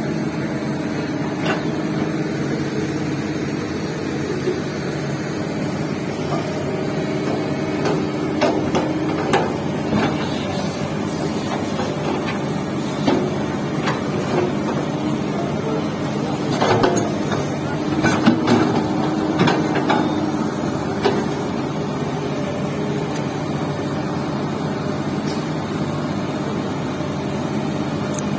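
Hydraulic excavator's diesel engine running steadily, with scattered sharp knocks and clanks, mostly about a third of the way in and again a little past the middle.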